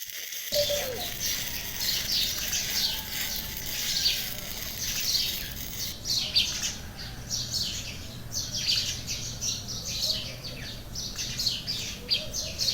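Birds chirping over and over in short, falling notes, over a steady low hum that comes in about half a second in.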